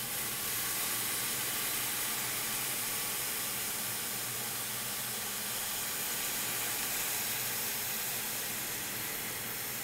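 Water poured from a kettle, a little at a time, into a hot aluminum pot of browned squirrel and onions, hissing steadily as it hits the hot pan.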